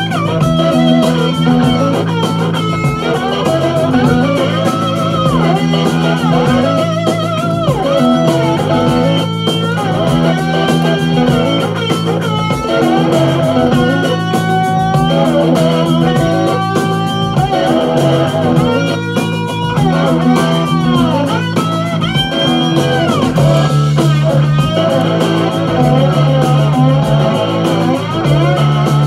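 Blues-rock playing from a vinyl LP on a turntable: an electric guitar lead with sliding, bending notes over a repeating bass line.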